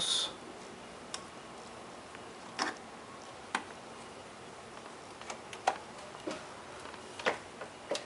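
Scattered light clicks and knocks, about eight over the span, from the old switch knobs on a school bus's driver-side control panel being handled and pressed.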